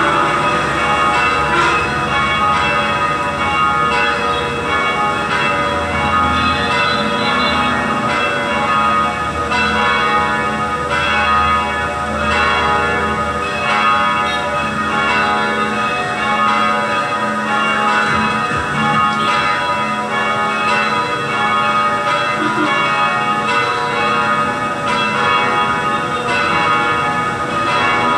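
A set of three church bells, cast at Kiên Lao in 2013 and weighing about 1800 kg together, ringing to call the faithful to Sunday evening Mass. They ring continuously, their tones overlapping with no pause.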